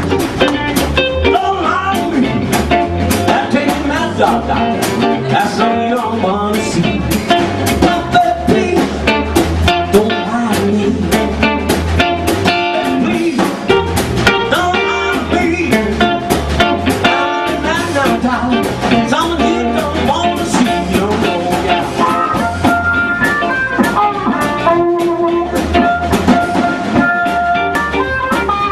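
Live blues band playing an instrumental passage with electric guitar, upright bass and drum kit, keeping a steady beat.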